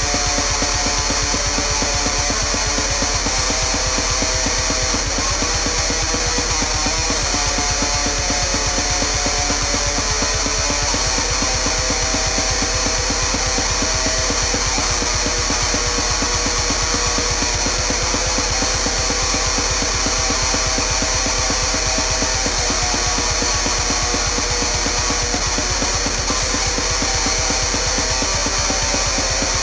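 Heavy metal music: guitar riffing over a drum kit keeping a fast, steady beat, with a brief cymbal-like accent every few seconds.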